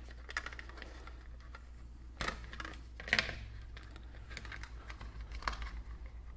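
Light clicks and taps of plastic parts being handled: a two-cell 18650 battery pack and a camping lamp's plastic housing being shifted about, with two louder knocks about two and three seconds in. A low steady hum runs underneath.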